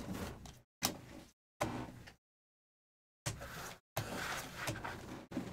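A stack of football trading cards being flipped through by hand, the cards sliding and rubbing against one another. It comes in several short spells of rustling, each about half a second to a second long, with dead silence between them.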